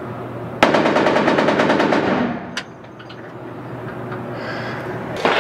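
A chrome-plated .50-calibre belt-fed machine gun firing one burst of rapid fire, a little over half a second in, lasting about a second and a half. It is heard from outside the range through bulletproof glass.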